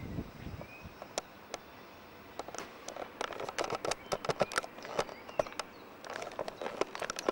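Irregular light clicks and taps, several a second in places and densest in the middle, over a faint outdoor background.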